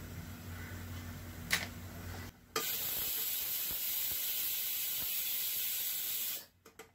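A steady, even hiss from the biryani pan on the gas stove, starting sharply about two and a half seconds in after a brief dropout and cutting off near the end. Before it, a low hum and a single light tap about a second and a half in.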